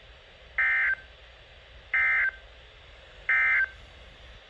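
Emergency Alert System end-of-message signal: three identical short bursts of SAME digital data tones, a warbling electronic buzz, each about a third of a second long and evenly spaced about a second and a third apart. It marks the end of the broadcast alert message.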